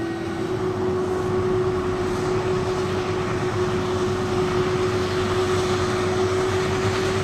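A large machine running steadily: an even engine rumble with a steady mid-pitched whine on top.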